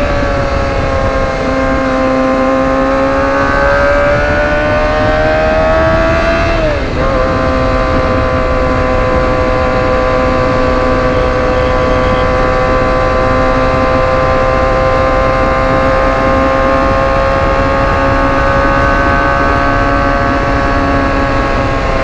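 Kawasaki ZX25R's 250 cc inline-four running through an aftermarket exhaust while riding at a steady cruise. The engine note eases down, climbs, then dips briefly about seven seconds in before holding an even pitch, over a steady low rumble.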